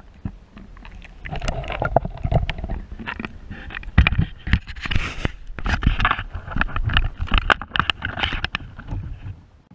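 Water splashing and sloshing around a camera dipped in and out of the water beside a kayak, with irregular knocks and scrapes.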